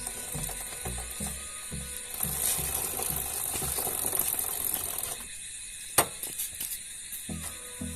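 Rhythmic mechanical ratcheting, about three strokes a second, from work on a motorcycle's rear drum-brake assembly. It eases off about five seconds in, with one sharp click about six seconds in, and starts again near the end.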